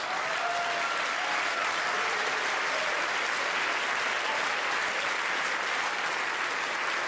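Live audience applauding steadily after a punchline, with some laughter near the start.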